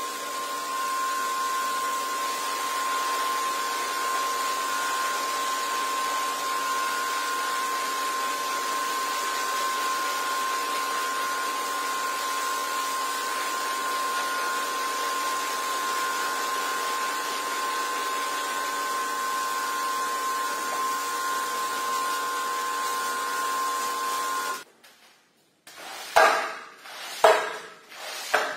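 A steady hiss with a high whine, which cuts off abruptly; then a squeegee pushed across the soaked carpet in strokes about one a second, each with a squeak, driving water out of the pile.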